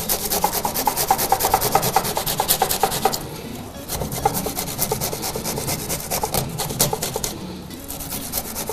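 A whole unpeeled head of garlic being grated on a hand grater: quick, rapid rasping strokes, with a short pause about three seconds in.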